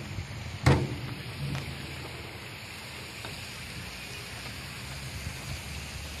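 Wind rushing over the microphone, a steady hiss with a low rumble. A sharp knock comes just under a second in, and a fainter one follows shortly after.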